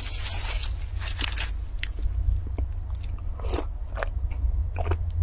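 Close-miked eating: plastic gloves and wrap crinkle as the food is handled, then a series of sharp biting and chewing sounds, and swallowing gulps from a drink near the end. A steady low hum runs underneath.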